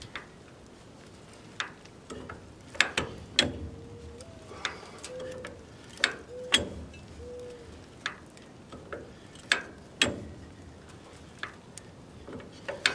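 Railroad track jack clicking as its handle is pumped to lift a shipping container: irregular sharp metal ratchet clicks, roughly one every second, with a few short squeaks midway.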